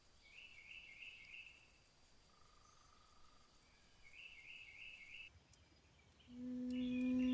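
Faint woodland ambience with two short, pulsing trilled calls from a small animal. A low, held musical note starts loudly near the end.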